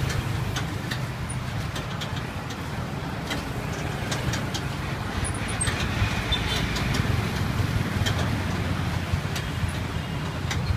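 Street ambience: a steady low rumble of traffic, with scattered light clicks over it.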